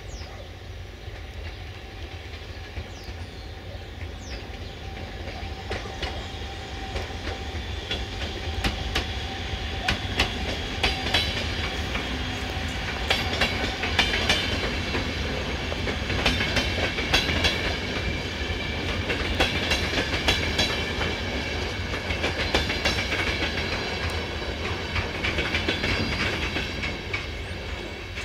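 A train rolling past on the track, its wheels clacking over the rail joints. It grows louder over the first several seconds and stays loud, with a faint high whine under the clatter.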